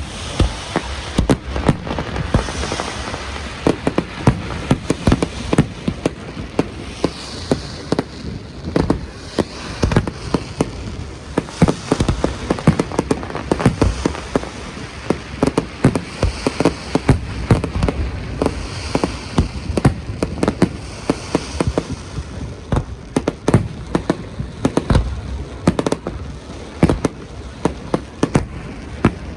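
Aerial fireworks display: a dense, irregular run of bangs, several a second, over a steady crackle.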